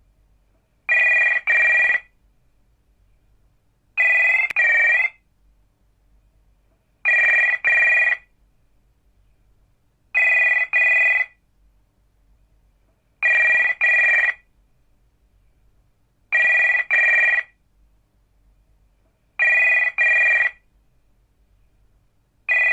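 Domestic landline telephone ringing in a double-ring pattern: two short rings about every three seconds, eight times over. The last ring is cut short near the end.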